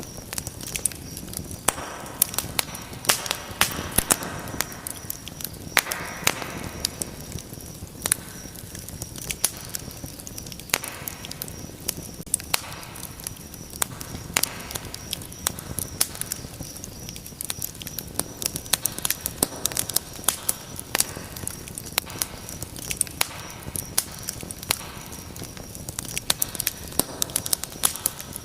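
Fireplace fire crackling: dense, irregular crackles and sharp pops over a soft steady hiss of flames.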